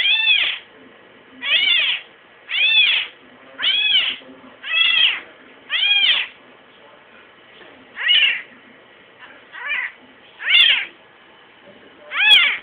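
A kitten meowing over and over: about ten high-pitched meows, each rising then falling in pitch, roughly one a second, with a short pause midway.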